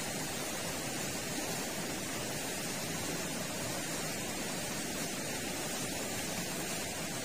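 Steady, even rushing of a flooded river's current.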